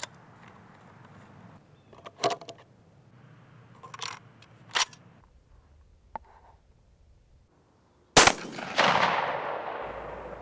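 A few light metal clicks in the first five seconds, then a single Smith & Wesson 1012 12-gauge shotgun shot about eight seconds in, its echo trailing away for a couple of seconds.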